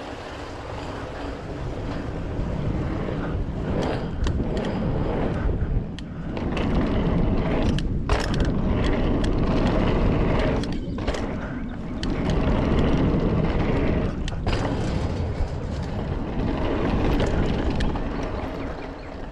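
Wind rushing over the microphone and mountain bike tyres rolling over a steel grate and then sculpted concrete, with a few sharp knocks from the bike hitting bumps.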